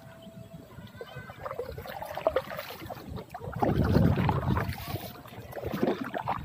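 Pond water sloshing and swirling as a gloved hand churns it at the surface, loudest for a second or so just past the middle, with a few small knocks and rustles before it.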